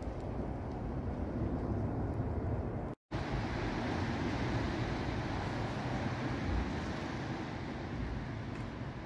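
Steady outdoor street background noise on a phone microphone, mostly a low rumble, with a moment of total silence about three seconds in where the recording cuts.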